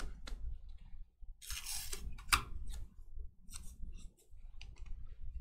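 Baseball cards being handled: a series of light clicks and snaps with a short papery swish, like cards sliding against each other, about one and a half seconds in.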